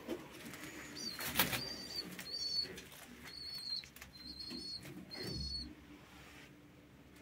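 A young pigeon's wings flapping as it is let go onto the grating floor, loudest about a second and a half in. Several short high peeps from the young pigeons come through the first five seconds, and there is a dull thump a little after five seconds.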